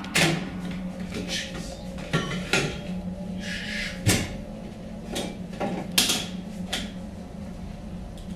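Irregular knocks and clatters, about ten in eight seconds, the loudest about four seconds in, over a steady low hum.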